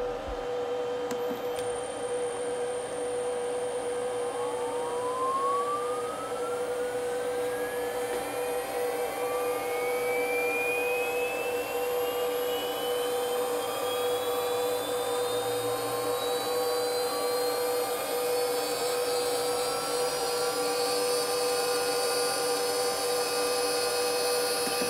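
1.5 kW water-cooled CNC spindle driven by a Huanyang inverter on 110 V, spinning up from rest on its first run: a whine rises steadily in pitch from about four seconds in and levels off near the end as the drive reaches 400 Hz. A steady hum and a high steady tone run beneath it.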